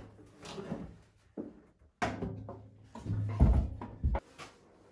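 Knocks and clatter of hands working on a compact tractor's hood and engine-bay parts, with a heavy low thump about three and a half seconds in.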